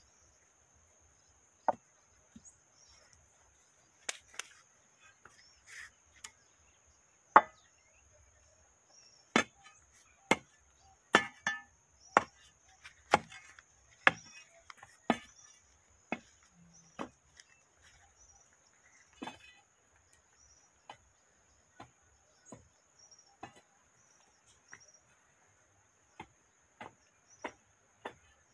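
Iron bar tamping earth and stones into a post hole around a wooden fence post: a series of sharp, irregular knocks about a second apart, thickest through the middle.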